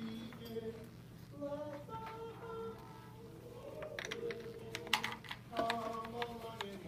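Classroom chatter: children's voices talking in the background, with scattered small clicks and taps and a cluster of sharp taps about four to five seconds in.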